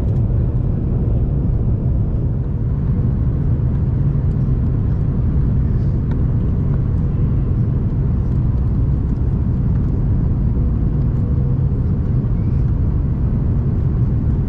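Steady low cabin rumble of an Airbus A330-200's engines and rushing airflow during the descent on final approach, heard inside the passenger cabin at a window over the wing.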